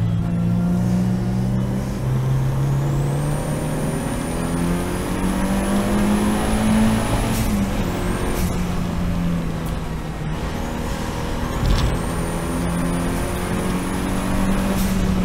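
Seat Leon race car engine under acceleration, its pitch climbing slowly and dropping sharply at an upshift about seven seconds in and again near the end. A high whine rises with it and cuts off at each shift.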